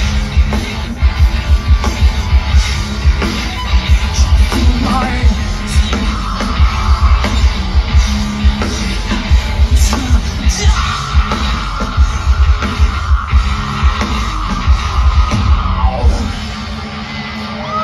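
Live hard rock through a festival PA, heard from within the crowd: distorted electric guitars, bass and heavy drums. The full band stops about 16 seconds in.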